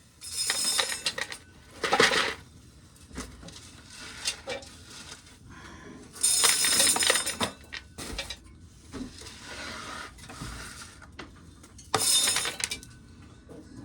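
Dry shelled corn kernels clattering and rattling as ears of corn are shelled into a pail. The sound comes in four short bursts of dense rattle, with scattered ticks of single kernels between them.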